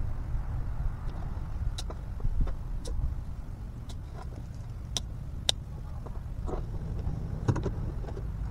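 Steady low rumble with a handful of sharp clicks and ticks from small hand tools being handled.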